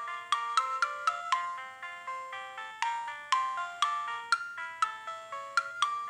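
Alcatel OT-C630X mobile phone playing a MIDI ringtone through its small speaker. It is a quick synthesized melody of short notes, about four a second, each struck sharply and dying away, from the phone's basic MIDI synthesizer.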